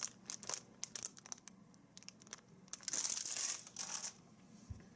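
Packaging being handled and opened: scattered crinkles and clicks, then a louder tearing, crinkling rustle about three seconds in that lasts about a second.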